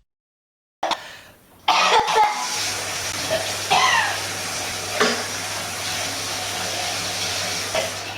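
A young woman coughing hard and retching, choking on a mouthful of dry cinnamon powder, in bursts starting about a second in, over a steady hiss.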